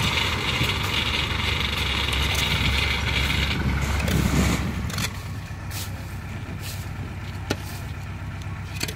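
Kubota rice combine harvester's diesel engine running steadily, with a higher whirring band that stops about three and a half seconds in. The whole sound falls to a fainter low hum about five seconds in, and a few light clicks follow.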